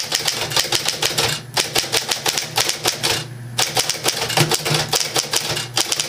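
1960 Smith-Corona Electra 12 semi-electric portable typewriter being typed on: quick runs of sharp keystroke clacks from the electrically driven typebars, broken by two short pauses, over the low steady hum of its running motor.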